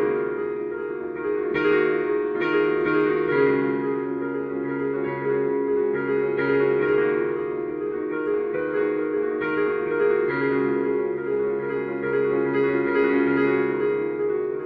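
Solo piano playing slow, sustained chords over low bass notes, with new notes struck every second or so.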